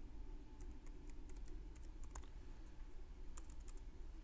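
Computer keyboard being typed on: a scattered, irregular run of light key clicks over a steady low hum.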